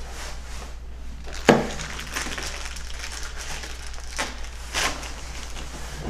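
Rustling, scraping handling noise as tools and lock parts are moved about at the door, with one sharp knock about a second and a half in.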